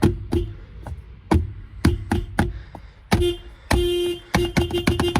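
Toyota car horn tapped in a string of short beeps, then held in one honk of about half a second, then sounded in a fast run of quick toots.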